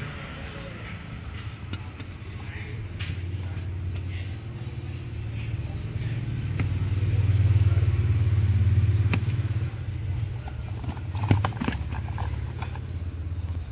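LED bulbs and their cardboard boxes handled up close, giving scattered clicks and taps, several close together near the end. Under them a low rumble swells about halfway through and then fades.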